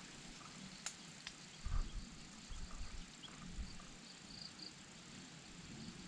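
Faint outdoor ambience: a low steady hiss with a few soft low thumps, two sharp clicks in the first second and a half, and a few faint high chirps a little past the middle.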